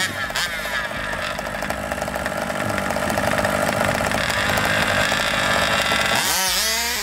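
Small two-stroke gasoline engines of 1/5-scale RC Baja buggies running at the start line, with short throttle blips, then revving up sharply about six seconds in.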